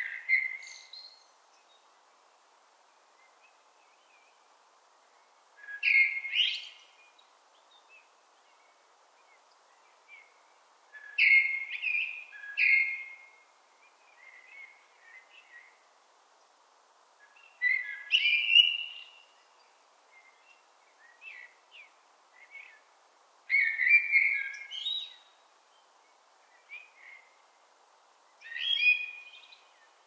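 Common blackbird singing: short song phrases every five or six seconds, each a lower warble that ends in higher, thinner notes, with quiet gaps between. A faint steady background hiss runs underneath.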